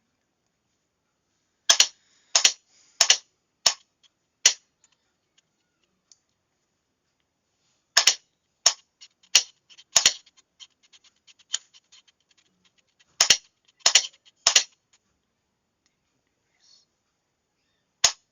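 Sharp mechanical clicks of a Morse signalling key being pressed and released in irregular groups as characters are sent, with no tone. The clicks come in three runs, with fainter small clicks among the middle run.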